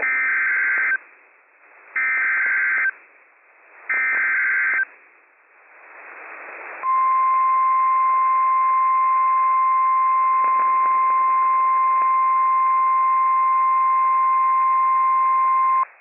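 Emergency Alert System SAME header from a NOAA Weather Radio broadcast: three bursts of warbling data tones, each about a second long and about a second apart, announcing a new severe thunderstorm warning. A brief rise of radio hiss follows, then the steady 1050 Hz NOAA Weather Radio warning alarm tone sounds for about nine seconds and cuts off.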